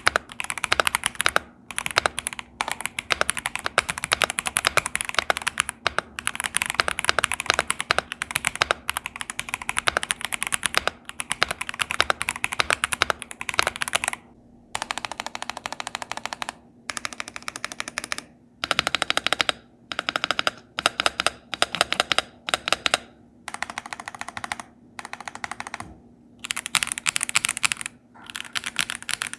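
Typing on a Kzzi K75 Pro gasket-mounted mechanical keyboard with linear switches, a rapid run of key clacks. Continuous fast typing for about fourteen seconds, then bursts of typing broken by short pauses.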